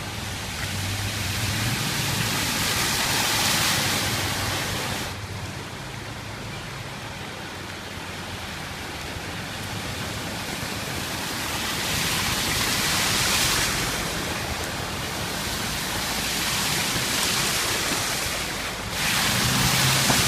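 Steady rushing of heavy water, with abrupt changes in level about five seconds in and again near the end.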